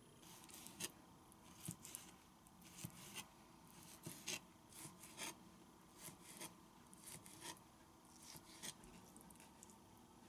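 Kitchen knife chopping raw fish on a plastic cutting board: irregular taps of the blade on the board, with some short scrapes, stopping near the end.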